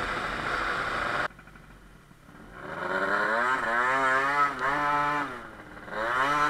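Tuned two-stroke scooter engine, a Sachs Speedjet RS with a Stage 6 cylinder and Yasuni R exhaust, running at steady revs until the throttle is shut suddenly about a second in. After a short quieter spell the revs rise and fall unevenly over and over as the scooter slows in traffic.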